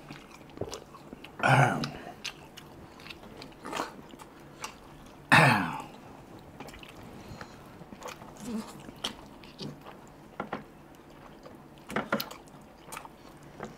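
Close-up eating sounds: chewing, smacking and sucking at chicken legs in curry with rice eaten by hand, with many small clicks of the mouth. Two louder throaty sounds stand out, about one and a half and five seconds in, the second falling in pitch.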